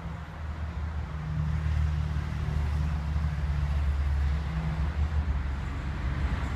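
Steady low mechanical rumble of a running vehicle engine, a little louder from about a second in.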